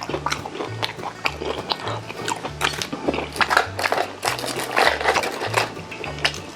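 Close-up eating sounds of a person chewing and biting rosé braised chicken (jjimdak): many short, irregular bites and wet chews, over background music with a steady repeating bass line.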